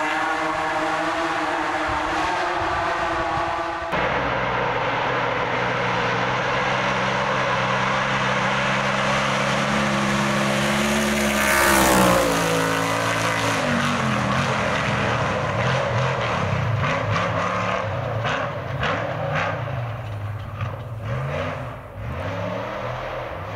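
Off-road race truck engine at speed. It runs at a steady pitch, then peaks and falls sharply in pitch as the truck passes about halfway through, then revs up and down as it drives on.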